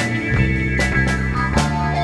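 Live instrumental rock band playing, with guitars and a drum kit: sustained low guitar and bass notes over drum hits on a steady beat of about two and a half a second.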